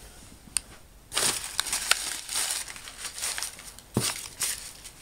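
Plastic snack wrappers crinkling and rustling as packets are handled, starting about a second in, with a dull knock about four seconds in.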